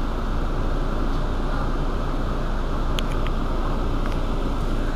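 Mercedes-Benz Citaro city bus idling at a standstill, a steady low running noise.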